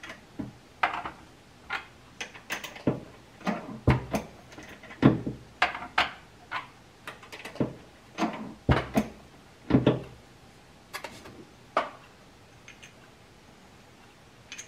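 Metal clicks and knocks from an RCBS single-stage reloading press being worked by hand, with brass cartridges clinking as they are handled while 350 Legend rounds are taper crimped. The knocks come irregularly, about one or two a second, and die away about twelve seconds in.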